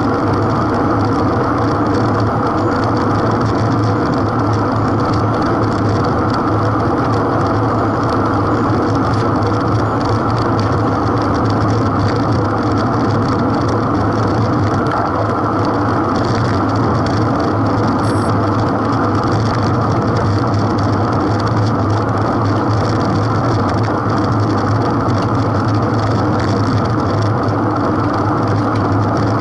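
Steady wind rush and road noise on a bicycle-mounted camera riding in a group of racing cyclists, with a steady low hum underneath.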